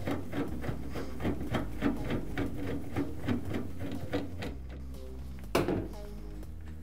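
Screwdriver turning a screw out of a plastic bathroom-fan grill: a quick even run of small clicks, about three or four a second, that stops about four and a half seconds in, followed by a single louder click about a second later.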